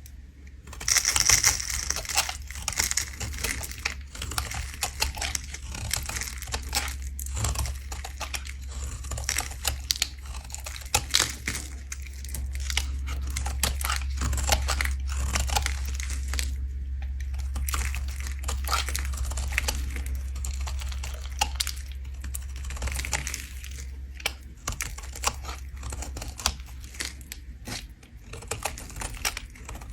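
Bar of soap being scraped with a blade: a dense run of crisp scraping and crunching strokes that starts about a second in, over a low steady hum.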